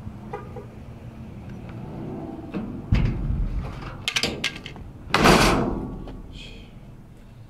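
Plastic lid of a metal dumpster being lifted open: knocks and rattles, a thump about three seconds in, and a loud bang a little after five seconds in.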